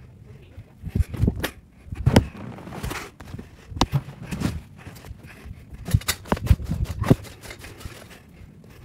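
Irregular thumps and knocks, one or two a second, from a child's running footsteps and the handheld phone being jostled and rubbed against clothing.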